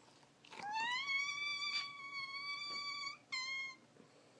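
A high-pitched whimpering whine: one long call that rises and then holds steady for about two and a half seconds, followed by a short second call.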